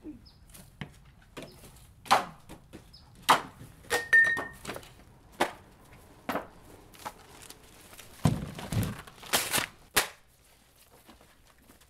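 Vinyl records being smashed and snapped one after another: a string of sharp cracks and knocks at irregular intervals, with a heavier thud about eight seconds in.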